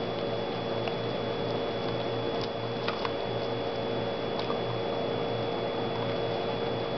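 A dog nibbling kernels off a corn cob: scattered faint crunches and clicks, over a steady background hum.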